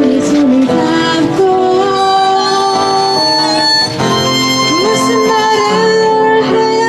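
Live band music: a sustained lead melody of long held notes with occasional slides in pitch, over an accompaniment.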